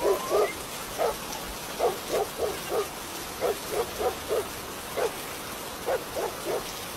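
A puppy yapping: short, sharp barks in quick runs of two to four, about sixteen in all.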